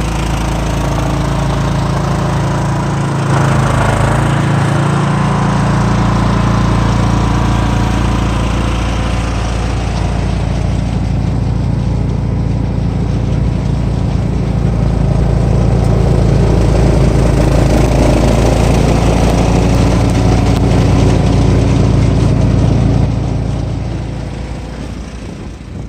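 Cub Cadet XT1 lawn tractor's engine running steadily with its three-stage snowblower attachment. It gets louder about four seconds in and again about halfway, then fades near the end.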